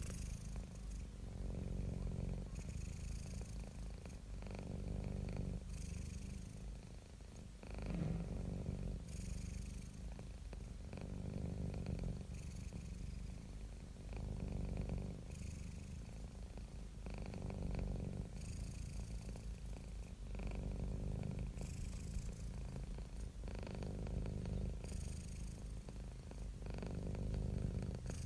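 A cat purring close up, a steady low rumble that swells and eases with each breath about every two to three seconds.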